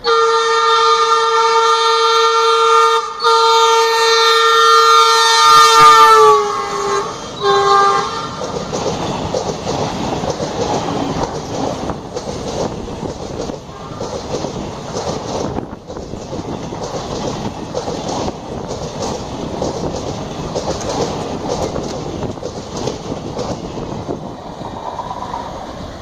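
WDG3A diesel locomotive's horn sounding loudly in a long blast with a short break about three seconds in, dropping in pitch as the locomotive passes at speed, with a brief final toot. Then the coaches' wheels clatter over the rail joints as the express runs through.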